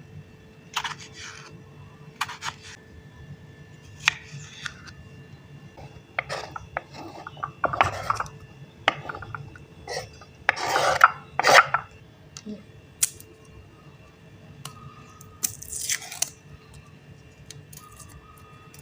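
Kitchen food preparation: irregular short scrapes, crunches and knocks of utensils on cookware or a board, over a steady low hum.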